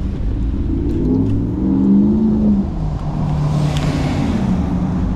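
Street traffic: a motor vehicle engine accelerating close by, its pitch rising and falling and then settling lower, over a steady low wind rumble on the microphone, with a brief hiss about halfway through.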